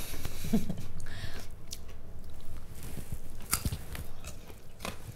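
Raw carrot stick being bitten and chewed: crisp crunches, with two sharper ones in the second half.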